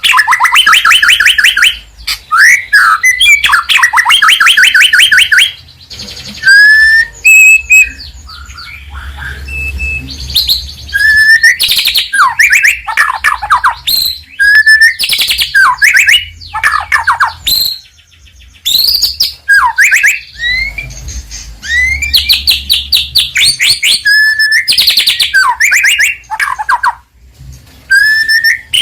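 White-rumped shama in full loud song: fast rattling runs of repeated notes alternating with whistled rising and falling phrases, broken by short pauses.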